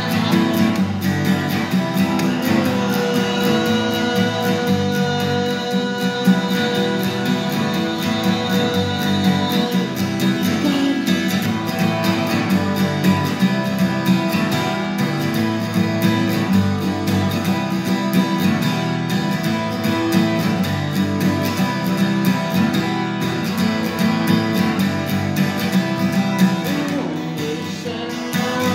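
Acoustic guitar strummed steadily, playing a song.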